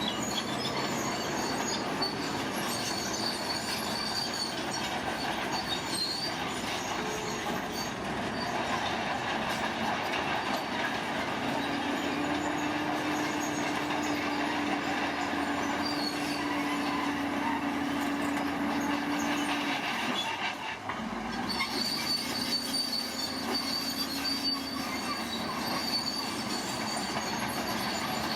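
Bulldozer working: its steel crawler tracks squealing and clanking over the steady running of its diesel engine, with a steady whine holding through the middle and a brief drop in level about two-thirds in.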